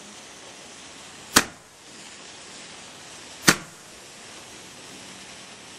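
Two sharp firework bangs about two seconds apart, each dying away in a brief echo.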